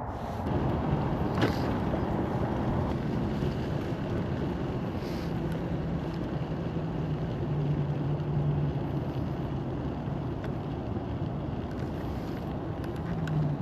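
Wind rushing over the camera microphone while riding an electric moped, with road and tyre noise and a low steady hum underneath.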